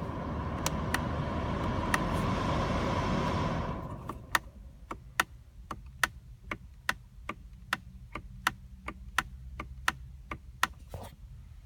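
Inside a parked SUV's cabin: a low steady hum under a broad fan-like hiss that stops about four seconds in, followed by an even run of sharp clicks, about three a second.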